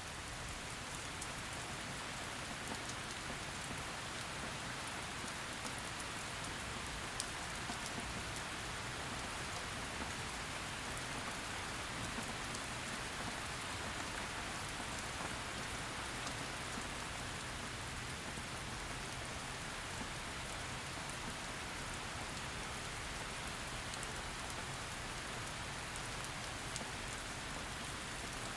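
Heavy rain falling steadily: a dense, even hiss with many small sharp drop ticks scattered through it.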